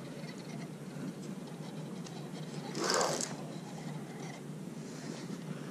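Centerpin reel spool spinning under the angler's hand while a hooked fish is being played, a faint whirring scratch. A short louder rush of noise comes about three seconds in.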